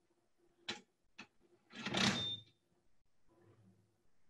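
Estic high-speed 30 N·m electric pistol nutrunner on a collaborative robot arm, running a bolt down during an automated fastening cycle: a click and a tick, then a short whirring burst of the tool with a brief high whine in it, over a faint steady hum.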